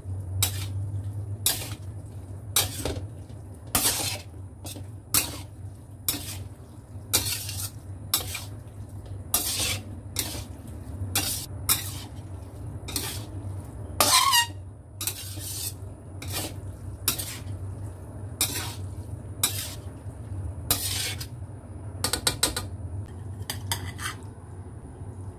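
A utensil scraping and knocking against a pan while pasta is stirred into a thick tomato sauce, about one stroke a second, with a short squeak about halfway through. A steady low hum runs underneath.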